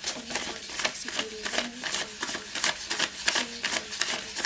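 Paper banknotes being counted by hand, each bill flicked off the stack with a crisp papery snap, several a second in a quick, fairly even run.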